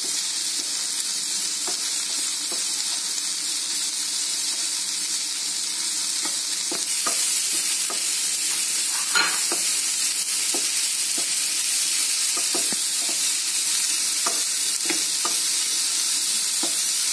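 Chopped onions sizzling in hot oil in a non-stick pan, stirred continuously with a wooden spatula that scrapes and taps the pan in short, irregular knocks. The onions are being sautéed until they turn brown.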